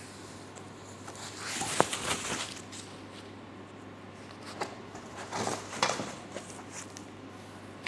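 Rustling of a large white packing sheet being handled in an opened cardboard box, in two spells of a second or so with a sharp light knock in each.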